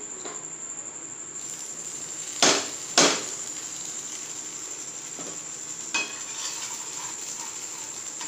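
Two sharp metal knocks about half a second apart, a couple of seconds in, then a lighter knock later: a steel spatula knocking against a flat iron griddle pan while a bread pizza is pressed and turned. A steady high-pitched whine sounds throughout.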